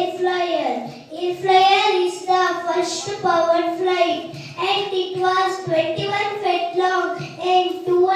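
A child singing, with long held notes that change pitch every second or so.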